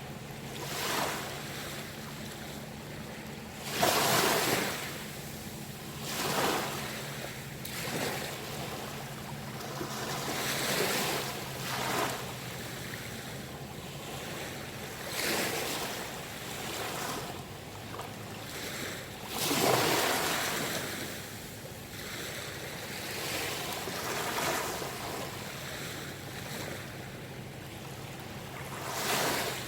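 Sea waves washing and breaking in repeated surges every few seconds; the largest come about four seconds in and around twenty seconds. A faint low steady hum runs underneath in the first half and fades out around the middle.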